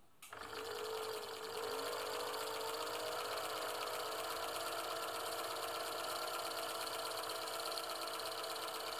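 Singer 766 sewing machine running at its low speed setting, winding thread onto the bobbin with its in-place bobbin winder as the needle goes up and down. It starts just after the beginning, rises slightly in pitch about a second and a half in, then runs with an even whir.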